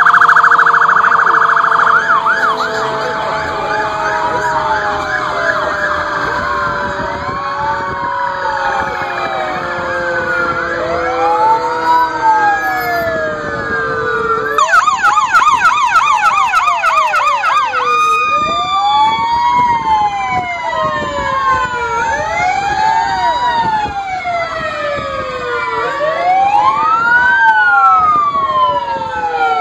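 Several fire apparatus sirens sounding at once, overlapping: slow rising and falling wails throughout, a fast warble at the start, and a rapid yelp for about three seconds around the middle.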